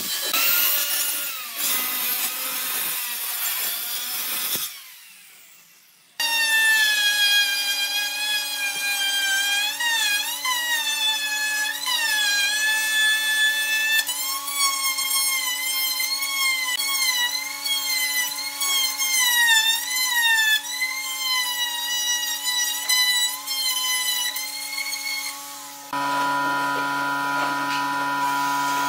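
An angle grinder with a drum sanding attachment sanding a pine board for the first few seconds, then a brief lull. Then a plunge router cutting pine along a clamped straightedge, its motor whine dipping and rising in pitch as the bit takes load. Near the end comes a steadier hum.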